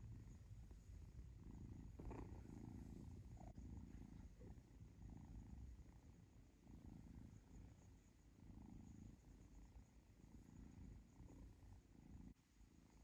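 A kitten purring faintly while being stroked, the purr swelling and easing with each breath: a sign of contentment.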